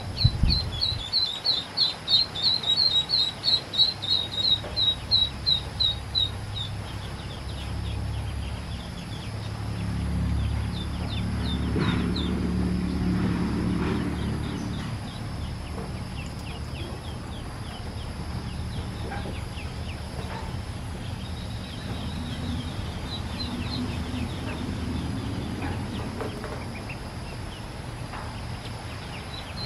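Ducklings peeping: a fast run of short, high chirps, about three a second and loudest over the first six seconds, then fainter and scattered. A low drone swells and fades in the middle.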